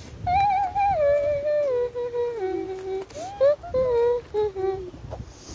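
A high voice humming a short wordless tune in held notes that mostly step downward, stopping near the end.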